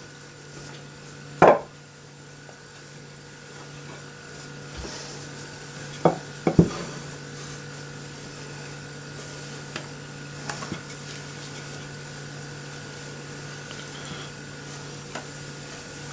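Hands working a sheet of pie pastry on a floured wooden board: soft rubbing and handling, with a few thumps on the wood, one about a second and a half in and two around six seconds in. A steady low hum runs underneath.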